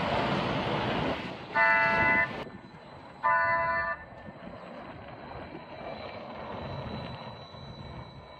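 City bus passing close, then its horn sounding two toots about a second and a half apart. The bus then pulls away more quietly, with a faint steady high whine.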